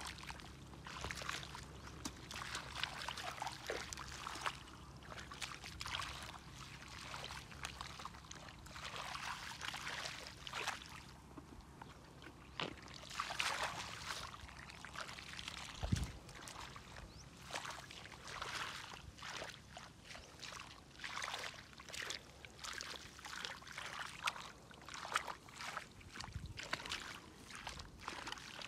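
Bare feet and hands wading and groping through shallow muddy water, with irregular sloshing, squelching and small splashes and one dull thump about halfway through.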